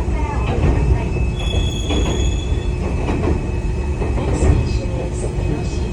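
Enoden (Enoshima Electric Railway) train running, a steady low rumble, with a brief high-pitched wheel squeal about one and a half seconds in.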